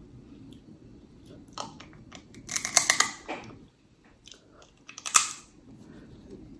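Close-up eating sounds of snow crab legs: shells cracking and chewing, in three bursts of sharp crackles, the loudest about two and a half to three and a half seconds in and another about five seconds in.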